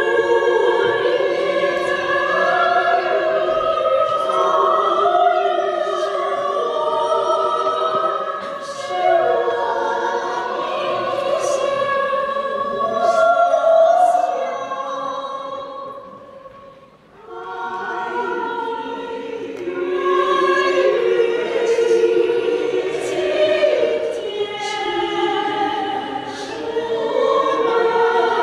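Small women's choir of about ten voices singing a cappella in harmony, with no instruments. The singing fades to a short pause about sixteen seconds in, then resumes.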